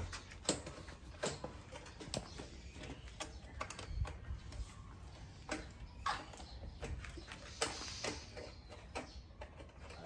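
Irregular light clicks and knocks of metal parts being handled as a titanium exhaust silencer is fitted onto a dirt bike's frame.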